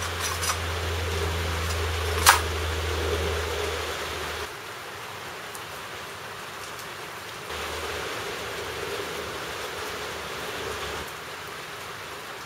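Steady hiss of falling rain with a low hum under it, and one sharp click about two seconds in. About halfway through it gives way to a quieter, even background hiss that swells for a few seconds and then falls back.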